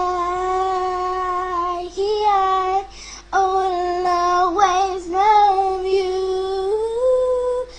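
A young girl singing alone, holding long drawn-out notes. There is a short break about three seconds in, and the pitch steps up near the end.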